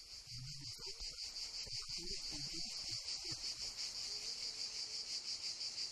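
Insects chirping: a high, evenly pulsing chorus of rapid chirps, several a second.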